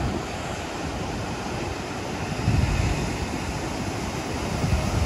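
Wind buffeting the microphone: a steady rushing noise with gusts of low rumble, the strongest about two and a half seconds in.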